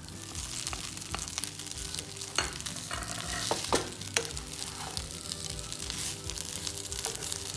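Fish, onion and spice mixture sizzling in oil in a frying pan, with a spoon stirring and scraping against the pan in scattered clicks as mashed potato is mixed in.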